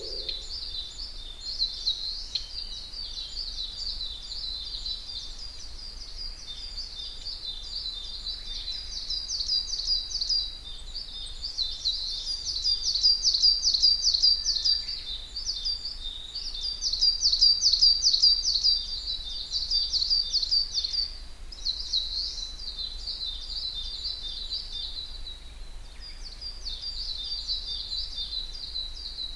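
Dawn chorus in a forest: continuous high-pitched, rapidly repeated chirping. It swells into louder, overlapping phrases through the middle and eases off near the end.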